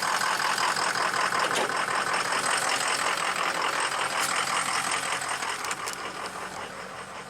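Ford 6.0 Powerstroke V8 turbo diesel running rough, misfiring on one cylinder: number 5 is dead, with low compression, and the owner wonders whether an injector is sticking. The engine sound grows fainter over the last couple of seconds.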